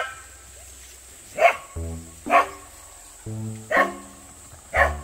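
A corgi barking: five short, sharp barks about a second apart. Background music with steady notes comes in about two seconds in.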